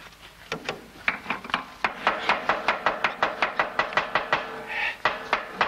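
Rapid metallic clicking and tapping, about five strokes a second with a slight ring, from a hand tool working a rusted screw on the underside of a machine. A short pause about three quarters of the way in, then the clicking starts again.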